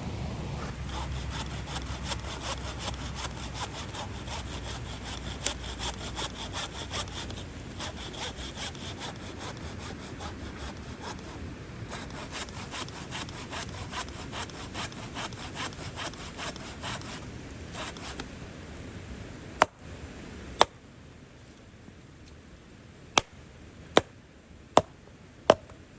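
Wood being sawn by hand, with even back-and-forth strokes at about two to three a second. The sawing stops about three-quarters of the way through, and six sharp knocks of wood follow.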